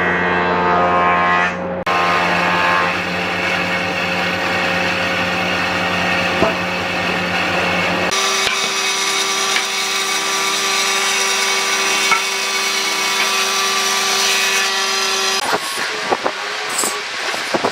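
Band saw running steadily and cutting through round wooden stock, its sound changing abruptly twice. Near the end, a series of short wooden knocks and clatter.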